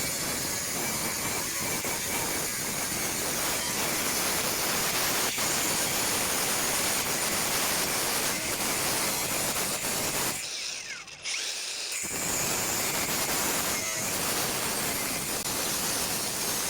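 Power tool running under load, a steady dense grinding noise that drops off briefly about ten seconds in, then picks up again.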